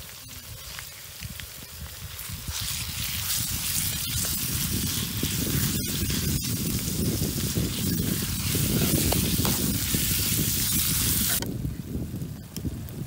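Minced pork sizzling as it fries in hot oil in a steel wok, stirred with a metal spatula. The sizzle swells a couple of seconds in and cuts off abruptly near the end.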